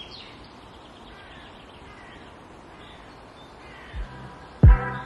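Faint outdoor ambience with birds calling, then music comes in near the end with a loud, heavy hit.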